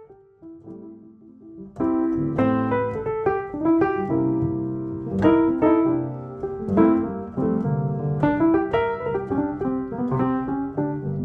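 Background piano music, soft at first and then fuller and louder from about two seconds in.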